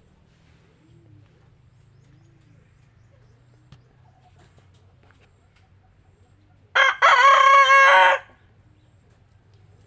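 A rooster crows once, about seven seconds in: a short first note, then a long held note that breaks off after about a second.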